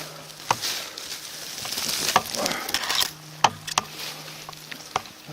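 Footsteps pushing through dry leaf litter and undergrowth, rustling, with several sharp snaps and knocks underfoot.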